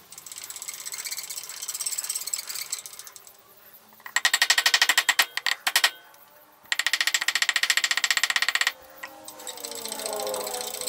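Two bursts of rapid, evenly spaced mechanical clattering, each about two seconds long, separated by a short pause, with softer steady machine noise around them.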